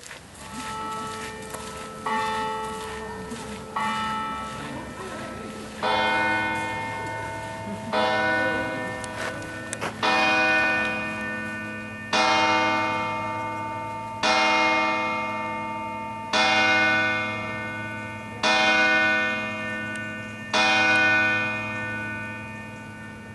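Church bells in an open bell tower ringing by single strikes. There are three lighter, higher strikes, then eight deeper, louder strikes about two seconds apart, each left to ring and die away under the next.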